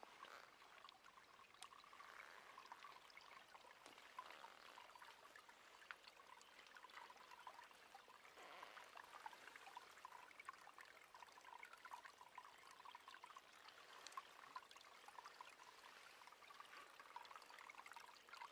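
Small woodland brook trickling and babbling over stones, faint and steady.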